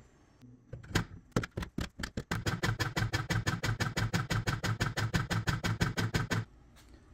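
Bar clamps knocking as they are hung on a wall rack: a few separate knocks, then a fast, very even run of sharp clacks, about nine a second, which stops abruptly near the end.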